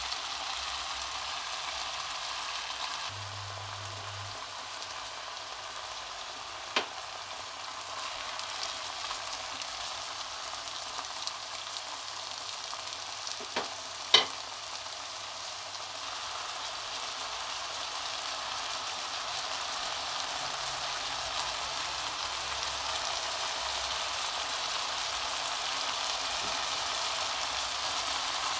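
Chicken with mushrooms and peppers frying in a pan, a steady sizzle throughout. Two sharp knocks, about seven seconds apart, cut through it.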